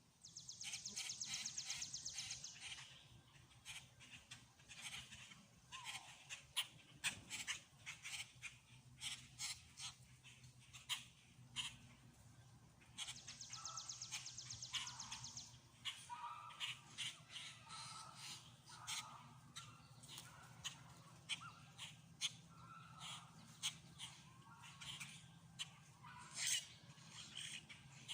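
Wild birds calling and singing: a high, rapid trill about half a second in and again about halfway through, with many short chirps and call notes from several birds throughout.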